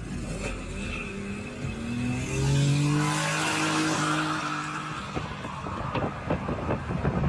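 A car's engine revs up hard as it does a burnout, its tyres spinning and squealing. It ends in a run of rattling knocks.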